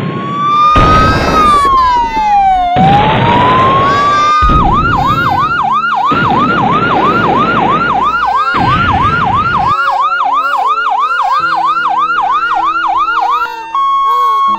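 Siren sounding a slow wail that rises, falls and rises again, then switching to a fast yelp of about three sweeps a second. Loud bursts of rushing noise come and go under it for the first ten seconds or so, and near the end the siren gives way to steady held tones.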